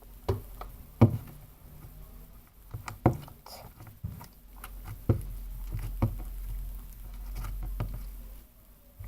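Clear slime being worked by hand with borax water just poured on it, making irregular wet squishes and taps.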